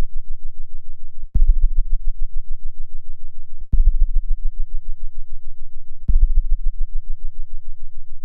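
Deep electronic throbbing drone, fluttering rapidly. It restarts with a short click about every two and a half seconds, three times and once more at the very end.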